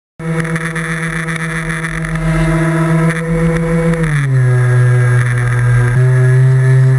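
Motor and propeller of a radio-controlled plane running with a steady pitched hum that cuts in suddenly. The pitch drops about four seconds in and then holds.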